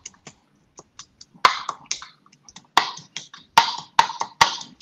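Pestle pounding fresh galangal, turmeric, ginger and garlic in a mortar: uneven knocking and crushing strikes, several a second, with a short pause near the middle. The mortar sits on a folded cloth that damps the knock against the counter.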